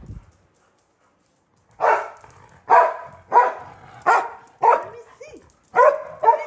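Dog barking in play over a ball: after a second and a half of silence, about seven short sharp barks, one roughly every half second or so.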